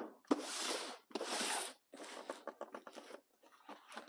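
Packaging being opened by hand: two long tearing or sliding rustles one after the other, then a run of light clicks and handling noises.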